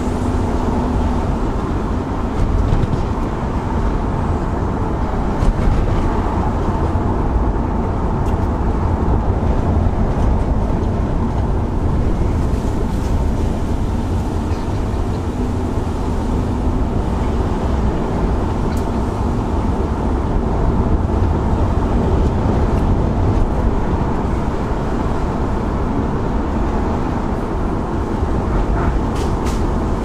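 Steady road and engine noise heard inside a moving car, a continuous low rumble.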